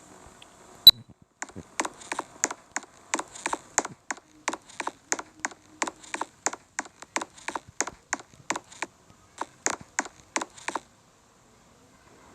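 Quick repeated hammer blows, about three a second, for roughly nine seconds, then a sudden stop. A single sharper crack comes just before they start.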